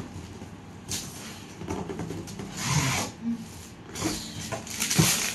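Shiny gold foil gift wrap crinkling and rustling in several bursts as hands rub and pull at it to unwrap a large box.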